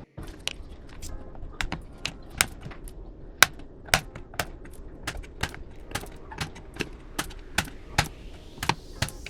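A steady run of sharp clicks, about two a second.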